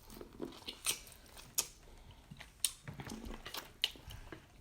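Chewing and mouth smacks while eating corn on the cob, a string of short wet clicks and smacks at irregular intervals.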